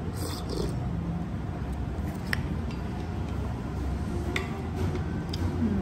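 A few light clinks of tableware, the clearest about two seconds in, over a steady low room hum.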